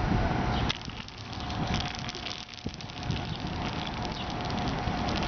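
Small wheels of a wooden push toy rolling over rough asphalt: a steady crackling clatter with many small ticks, quieter for a couple of seconds about a second in.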